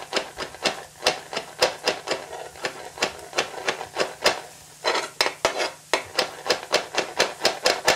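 Kitchen knife chopping garlic on a cutting board: sharp, evenly paced knocks of the blade striking the board, about three a second.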